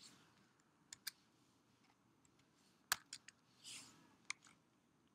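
A handful of faint, sharp clicks from a computer's keyboard and mouse, scattered over near silence.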